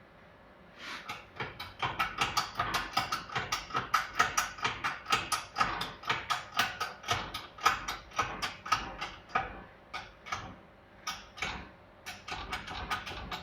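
Rapid, rhythmic mechanical clicking, about three strokes a second, as the shop press is worked to force a stuck rear-shock seal head. The clicking stops and starts a few times near the end.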